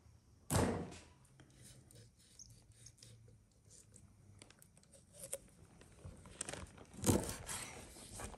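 A raw whole chicken is handled and cut with a knife on a wooden cutting board. There is a heavy thud about half a second in, then small clicks and cutting noises, and a second heavy knock about seven seconds in as a wing tip is chopped off.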